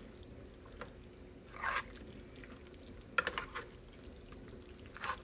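Metal spoon stirring a wet mixture of ground beef, rice and picante sauce in a skillet: a few wet, squelching strokes, with a sharp clink of the spoon against the pan about three seconds in.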